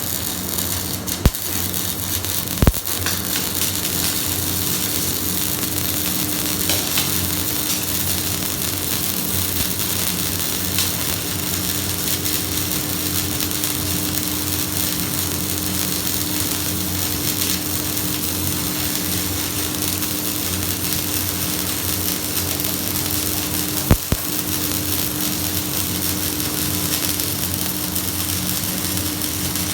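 Electric welding arc running steadily: an even hiss with a low hum underneath, broken by a couple of sharp clicks near the start and one more about 24 seconds in.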